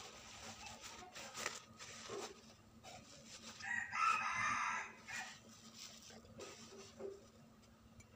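An animal call, about a second long, roughly halfway through, amid faint rustling and clicks.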